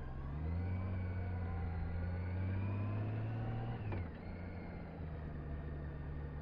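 Large touring motorcycle pulling away at low speed: the engine note rises and climbs gently in pitch, drops sharply about four seconds in, then carries on as a steadier, lower hum.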